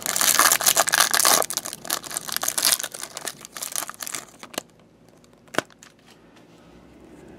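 Plastic wrapper of a basketball trading-card pack being torn open and crinkled, loudest in the first second and a half, then thinning to scattered crackles as the cards are pulled out. A single sharp click a little past the halfway mark.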